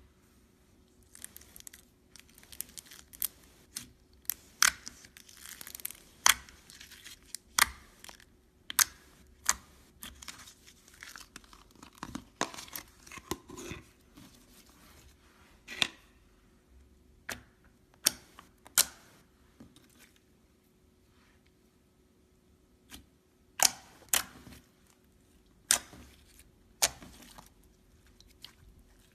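Bubbly slime being pressed and stretched by hand, its trapped air bubbles popping in irregular sharp clicks and crackles, some in quick clusters and some alone with pauses between.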